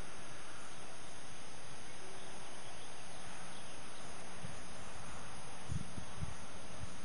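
Steady chirring of insects, with a few low bumps near the end.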